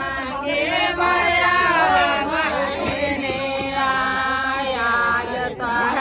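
Group of women singing together in chorus, several voices holding long, wavering notes.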